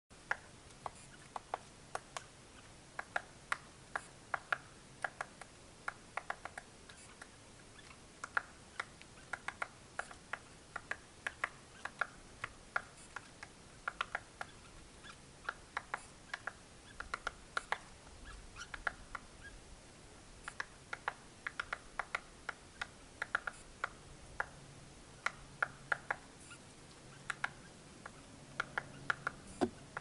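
American three-toed woodpecker pecking at ponderosa pine bark as it forages: irregular sharp taps, one to three a second, some coming in quick clusters.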